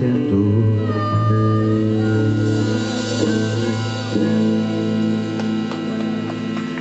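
Live blues band music, an electric guitar playing over long held notes.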